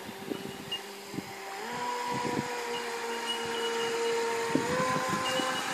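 Radio-controlled speedboat's motor running at speed, a steady pitched drone that steps up in pitch twice as the throttle is opened further.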